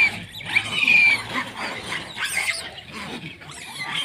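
Trapped macaques in a wire cage screeching: high, arching squeals about half a second long, two loud ones in the first second and a half, then fainter calls, the distress calls of caught monkeys.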